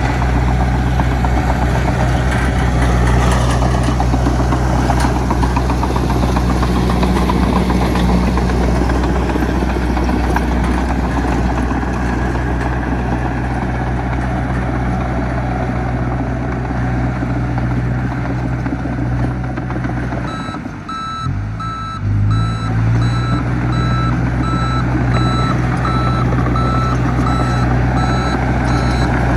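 Heavy diesel engine of earthmoving machinery running steadily under work. About two-thirds of the way through, the engine note briefly drops, then picks up again, and a reversing alarm starts beeping about once a second: a machine backing up.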